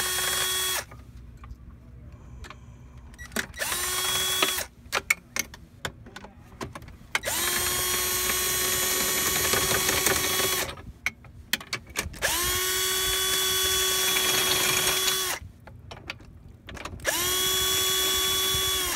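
Power drill with a long socket extension spinning out the 14 mm bolts that hold the steering nozzle assembly to a jet ski pump. It runs five times: a short burst about four seconds in and longer runs of two to three and a half seconds, each spinning up to a steady whine and winding down. Clicks and clatter of tool and bolts come between the runs.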